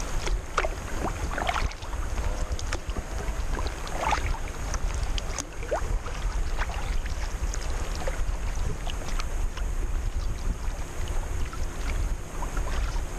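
Wind rumbling on a small action camera's microphone mounted on a sea kayak, with scattered light splashes and drips of water from paddle strokes.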